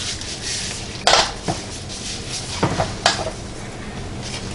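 Metal clanks and clinks as a metal roasting pan and its utensils are handled on a counter: four sharp knocks over a few seconds.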